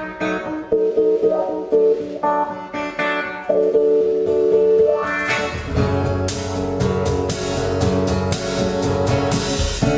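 Live band playing an instrumental intro: a plucked guitar alone at first, then the drum kit and the rest of the band come in about halfway through, making the sound fuller and louder.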